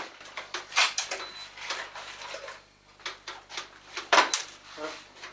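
Sheet-metal desktop computer case being handled: scattered metallic clanks and knocks as the chassis is moved and set down and the steel cover is fitted, the loudest knock about four seconds in.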